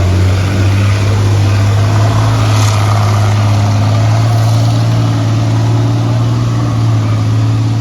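Motor vehicle engine running steadily, a loud low drone that holds an even pitch throughout.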